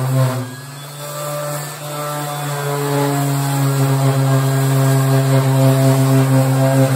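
Ridgid random orbital sander running against the painted steel of a VW Beetle decklid: a steady motor hum that drops in level about half a second in, then builds back up and holds.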